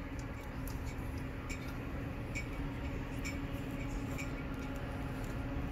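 Quiet open-air background: a faint steady low hum with soft ticks roughly once a second.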